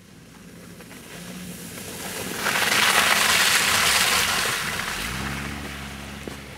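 SUV driving past close through slushy snow, its tyres and engine rising to a loud rush of churned snow as it passes a couple of seconds in. It then pulls away across deep snow with its engine holding steady revs.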